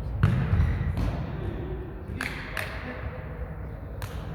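A jokgu ball being kicked and bouncing on the court: about five short, sharp thuds at uneven intervals.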